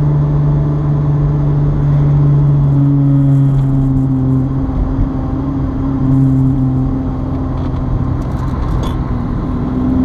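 Toyota 2GR-FE 3.5-litre V6 in a swapped mid-engine MR2, heard from inside the cabin while cruising: a steady engine drone at nearly constant revs over road noise.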